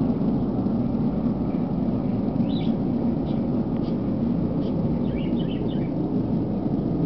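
A very loud, steady low hum of unknown origin, sounding like a jet aircraft or very large machinery running: the so-called 'Hum'. Faint bird chirps come through about two and a half seconds in and again near five seconds.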